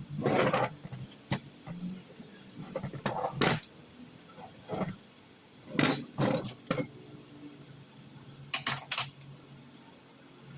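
A car engine idling with a steady low hum, overlaid by several short clattering noises.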